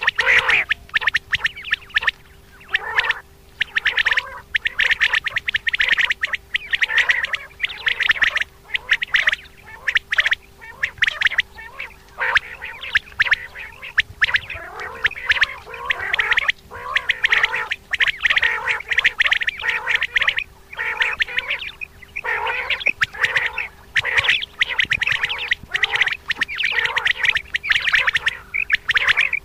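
Common quail calling over and over: quick, overlapping calls that come in bursts of a second or two with short breaks, over a faint steady hum.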